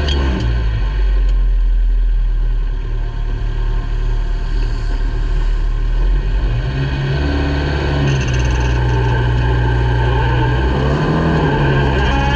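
Ministock speedway car's engine heard from inside the cockpit, running hard. The revs ease off about two seconds in and pick up again about seven seconds in.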